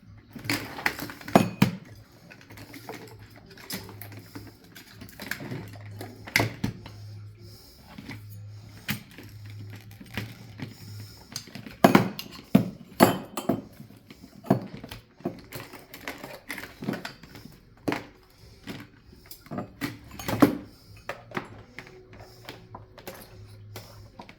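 Irregular clicks, taps and clinks of small metal parts being handled, as in taking apart or reassembling an air horn, with a faint low hum that comes and goes.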